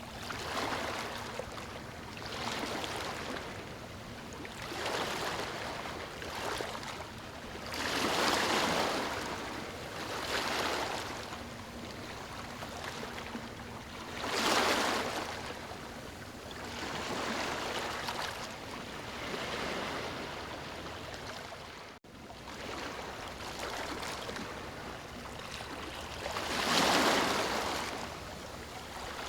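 Ocean surf breaking on a sandy shore: a steady wash of water noise that swells and falls every few seconds as waves come in. Three breakers are louder, about a third of the way in, halfway through and near the end. There is a split-second dropout about three-quarters through.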